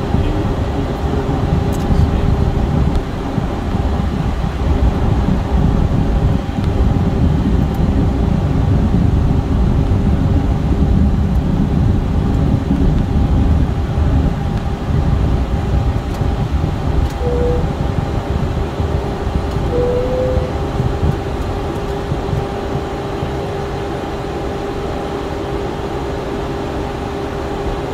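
Cockpit noise of a Cessna Citation CJ4 taxiing: its twin Williams FJ44 turbofans hum steadily at idle over a low rumble. Two brief chirps come about 17 and 20 seconds in, and the rumble eases in the last few seconds.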